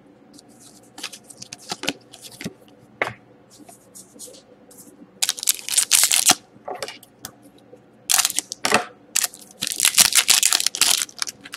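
Trading cards being handled: cards slid and flicked against one another and a plastic card sleeve crinkling, heard as a run of short scuffs and clicks with longer rustling stretches about five seconds in and again from about eight to eleven seconds.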